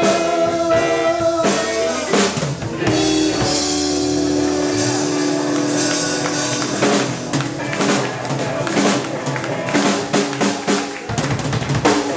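Live rock band playing an instrumental passage without vocals. A drum kit plays many drum and cymbal hits under electric guitars and bass, with long held notes in the first half.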